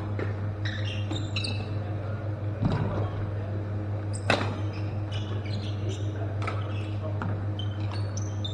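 Badminton play: a sharp crack of a racket hitting the shuttlecock about four seconds in, with a softer thud before it, and short high squeaks of court shoes on the floor throughout, over a steady low hum.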